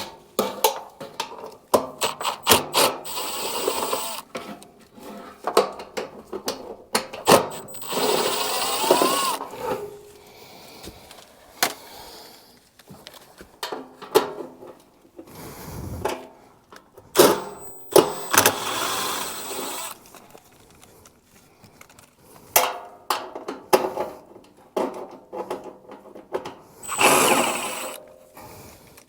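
Cordless drill/driver running in several short bursts with a thin high whine, between sharp clicks and knocks of tools and parts, as fasteners are backed out to free a furnace blower assembly.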